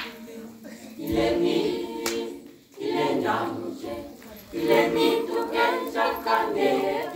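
Mixed youth choir of young men and women singing a gospel song a cappella, in sung phrases with short breaks for breath between them.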